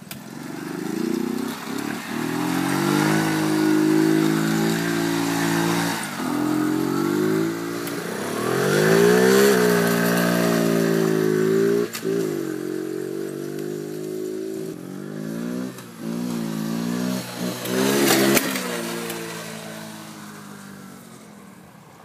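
Minibike engine revving as the bike pulls away and rides off, its pitch climbing and dropping again and again with the throttle. It grows fainter near the end as the bike moves away.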